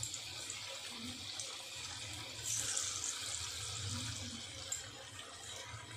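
Battered baby corn deep-frying in hot oil: a steady hiss and crackle of bubbling oil, swelling briefly about two and a half seconds in.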